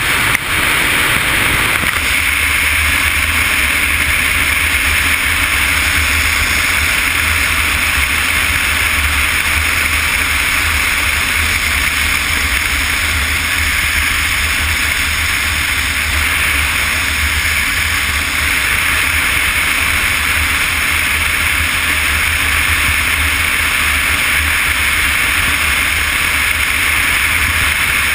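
Touring motorcycle cruising at highway speed: steady rushing wind and road noise over a deep, even rumble.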